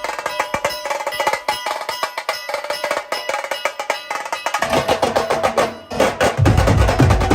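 Brass band music with dhol-tasha drumming: fast, sharp, rapid drum strokes under a pitched melody line. About two-thirds of the way in, deep drum beats join, stop for a moment, then come back heavier.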